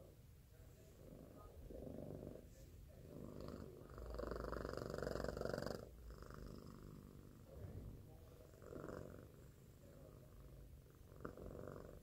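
Domestic kitten purring close to the microphone, in swells that rise and fall with each breath, with a louder stretch near the middle.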